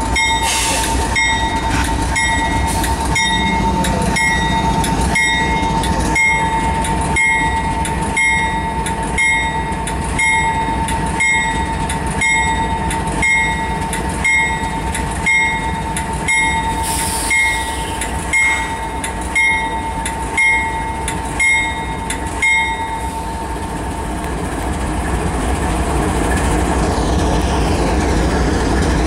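CSX GE locomotive's air-rung bell ringing steadily, about one strike a second, over a steady whine and the low rumble of the slow-moving diesel locomotives. The bell and the whine stop about three-quarters of the way through, leaving the engines running.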